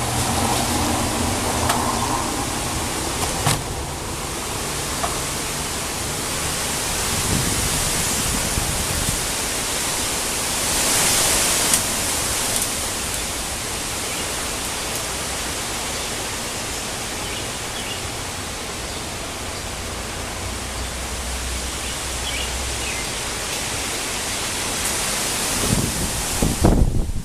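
Gusty wind with rain, a steady rush that swells for a couple of seconds around the middle. Just before the end, gusts buffet the microphone in low rumbling bursts.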